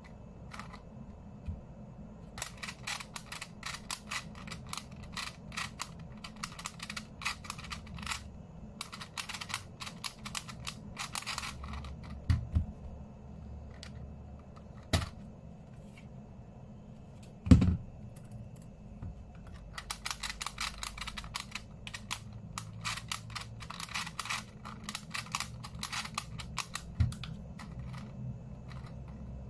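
Rubik's Clock being turned quickly by hand: its dials make fast runs of small ratcheting clicks in two long stretches. These are broken by a few single louder knocks, the loudest a little past the middle.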